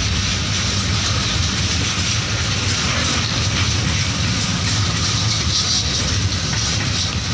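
Container freight wagons rolling past on steel rails: a steady rumble of wheels on track with a rushing hiss and a few faint clicks.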